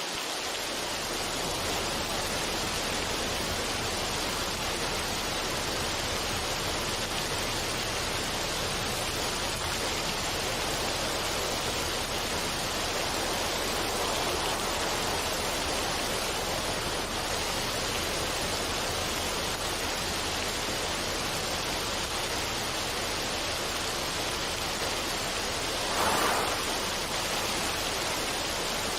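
Steady rushing water, an even hiss with no separate drops or splashes, swelling briefly about 26 seconds in.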